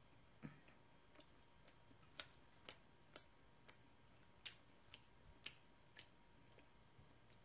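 Faint, sharp clicks, roughly two a second, made by a mouth chewing freshly baked home-made corn bread, over near-silent room tone.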